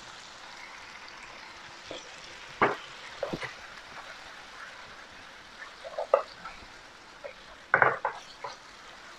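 Tofu and tomato sizzling quietly in a nonstick wok, with a wooden spatula knocking and scraping against the pan now and then as it is stir-fried; the loudest clatter comes a little before the end.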